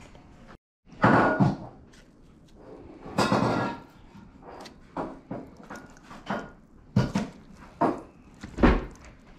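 Kitchen handling sounds while breading fish fillets: a couple of louder rustling scrapes, then a string of short knocks and clunks from bowls and utensils.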